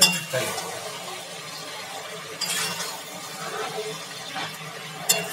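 Steel ladle stirring chicken and dried red chillies frying in an iron kadai. The ladle clinks against the pan at the start and again near the end, with a scrape of turning in between, over a low steady sizzle.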